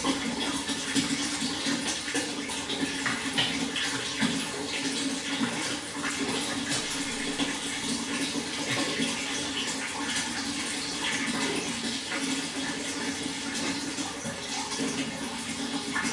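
Water flowing steadily, a continuous splashing rush.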